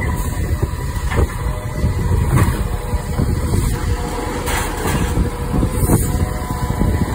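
Side-loading garbage truck on an Iveco Stralis chassis running while its hydraulic side arm lifts a wheelie bin and tips it into the hopper, with several clunks and rattles from the arm and bin.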